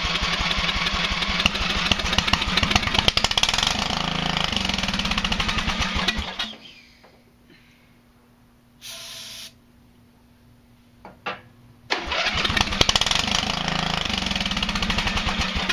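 Riding lawn mower engine cranking on its electric starter with rapid chugging for about six seconds, a short hiss of starting fluid sprayed into the carburettor, then a second spell of cranking near the end. This is a starting-fluid test with the fuel line clamped off: the engine tries to fire only on the fluid, which points to a carburettor fault, taken for a stuck float or needle valve.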